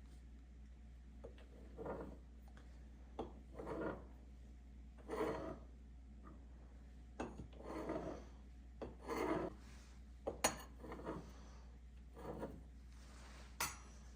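A series of about ten short, irregular scraping strokes from hands-on kitchen work, with a couple of sharp clicks in the second half.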